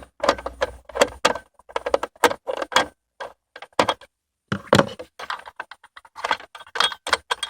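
Hard plastic clicking, knocking and rattling as the Seat Leon mk1 ashtray and cigarette-lighter housing is wiggled loose from the centre console: a run of sharp clicks, a pause of about a second and a half, then another run.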